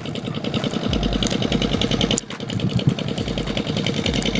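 A small boat's engine running steadily with a rapid, even putter.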